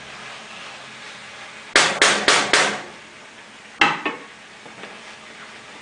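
A wooden spoon rapped four times in quick succession against the rim of a cooking pot, then one more knock about a second later.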